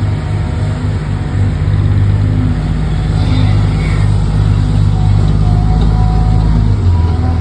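Heavy vehicle engine sound running low and steady, with a change in its low note near the end.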